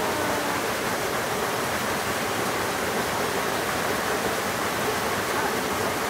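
Small waterfall on a rocky mountain stream: water pouring over a low rock ledge into a pool, a steady, even rushing.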